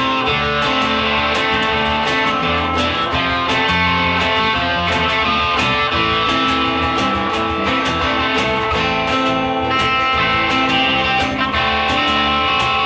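Live band playing the song with strummed guitars over a steady beat.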